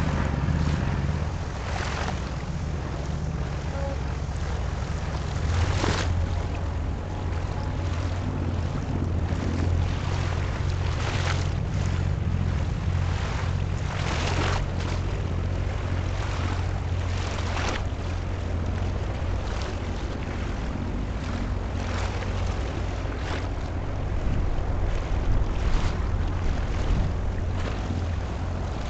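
Wind gusting on the microphone over a steady low rumble, in repeated short buffets.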